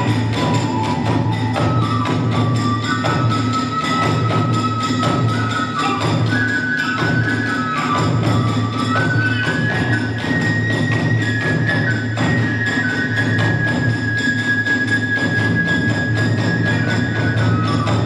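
Kagura hayashi accompanying a fight dance: a transverse flute plays a high melody of held notes that climbs in steps through the first half and holds one long high note near the end, over a steady beat of taiko drums and clashing small hand cymbals.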